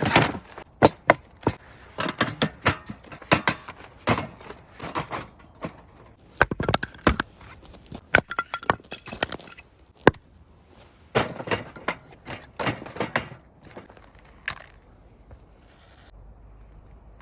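Irregular sharp clicks, knocks and clatters of objects being handled, coming in quick clusters with short pauses between them.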